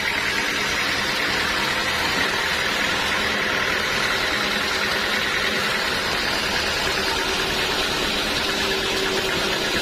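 Sawmill machinery running steadily, a constant even machine noise with no pauses.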